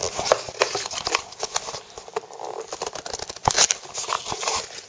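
Cardboard product packaging being worked open by hand: a run of small scratches, clicks and rustles, with one louder knock about three and a half seconds in.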